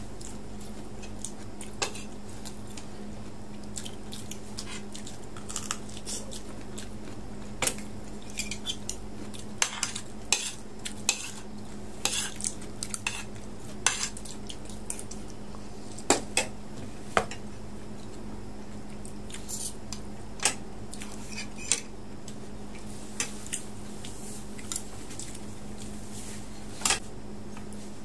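Metal spoon and fork clinking and scraping against a ceramic plate while eating, in scattered, irregular clicks. A faint steady low hum runs underneath.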